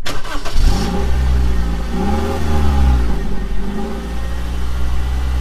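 A motor vehicle engine running loud and revving, its pitch rising and then falling back around the middle.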